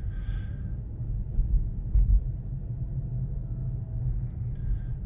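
Low, steady tyre and road rumble of a Tesla Model 3 electric car on the move, heard from inside the cabin, with one sharp click about two seconds in.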